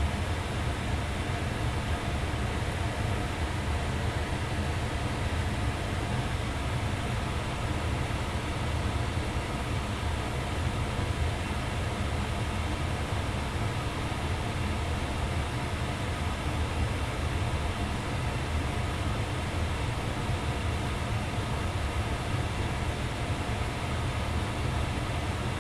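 2002 Ducane furnace running steadily with its blower on: an even, low rumble with a faint steady hum, unchanging throughout.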